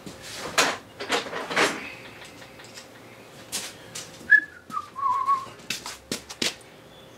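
A short whistled note about four seconds in, sliding down in pitch and held briefly. Around it are rustling handling noises and a few sharp clicks.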